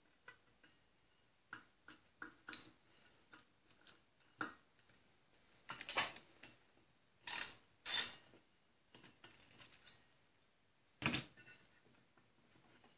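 Ratchet wrench with an Allen-bit socket clicking in short runs as the drive-disc bolts are loosened and backed out, with a few louder sharp metal knocks in the middle and near the end.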